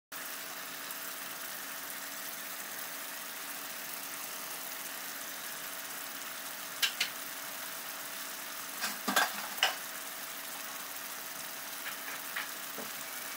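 Floured chicken breast pieces sizzling in butter and oil in a non-stick pan, a steady frying hiss. A handful of louder sharp pops come in the second half.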